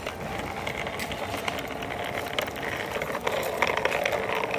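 Plastic wheels of a toy school bus rolling along a rough concrete wall top as it is pushed by hand: a continuous gritty rattle full of small clicks, growing a little louder toward the end.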